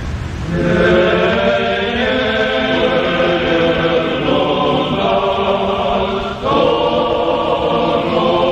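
Choir singing in sustained, full chords. A new phrase comes in about half a second in, and another follows about six and a half seconds in after a brief drop.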